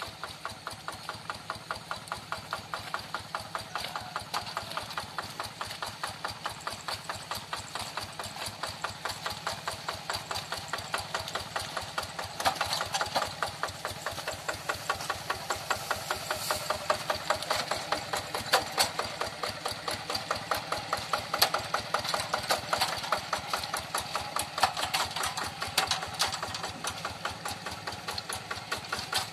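Single-cylinder diesel engine of a Yanmar Bromo Pro hand tractor running at a steady speed, a rapid even chugging that grows louder about halfway through.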